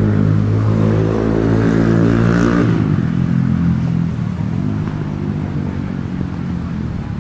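An engine idling steadily close by, loud at first, then dropping away about three seconds in, leaving a quieter engine hum.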